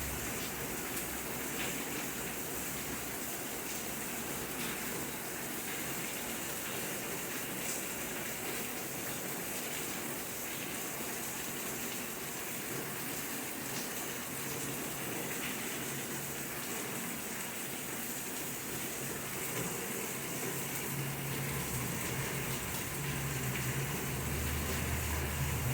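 Steady rain falling, a continuous hiss with scattered faint ticks of drops. A low rumble builds in the last few seconds.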